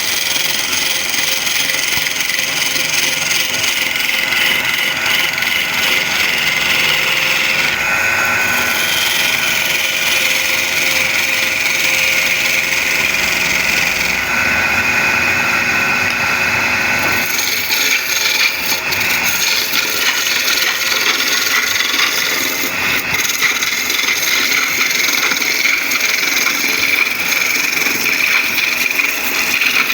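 Wood lathe running, with a turning tool cutting into the spinning wood: a steady motor hum under a continuous hissing scrape. The cutting sound changes in tone about eight seconds in and again about seventeen seconds in.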